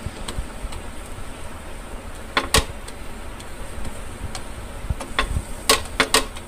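Spatula clicking and knocking against a nonstick frying pan as a paratha is lifted and pressed: a pair of sharp knocks about two and a half seconds in and a quick cluster near the end.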